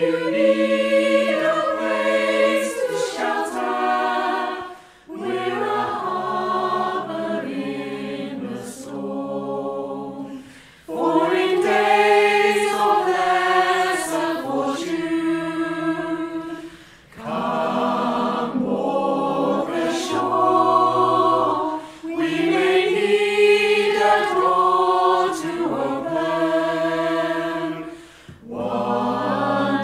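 A choir of women's and men's voices singing in harmony, in sung phrases of about five to six seconds separated by short breaks for breath.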